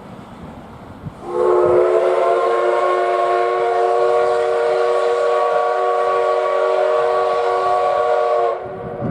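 Steam whistle of the D51 498 steam locomotive blowing one long, steady blast of about seven seconds. It starts about a second in and cuts off sharply near the end.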